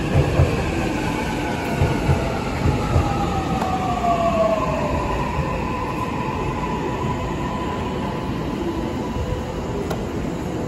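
An electric train's motors whining and falling steadily in pitch as it slows alongside the platform, over the steady rumble of its wheels on the rails. A few dull knocks come in the first few seconds.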